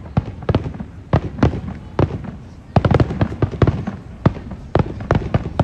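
Aerial fireworks bursting in quick, irregular succession: more than a dozen sharp bangs with short echoing tails, coming thickest in a rapid cluster a little past halfway.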